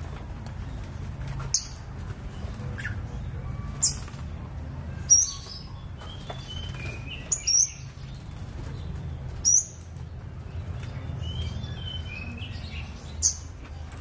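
Scarlet-headed flowerpecker calling: a series of short, sharp, high-pitched chirps every second or two, with softer twittering notes between them, over a steady low background rumble.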